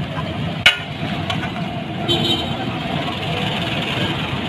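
Steady street din of passing traffic with voices in the background, and one sharp knock a little under a second in.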